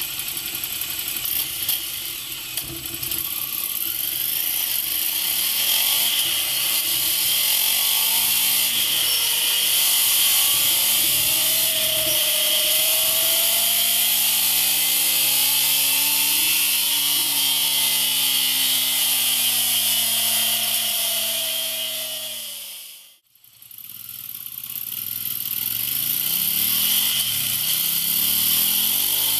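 Ducati Scrambler 800's air-cooled L-twin running through a MIVV GP slip-on exhaust while riding, over heavy wind hiss. The engine note climbs slowly and falls back as the bike accelerates and eases off. About 23 seconds in the sound fades out, then comes back.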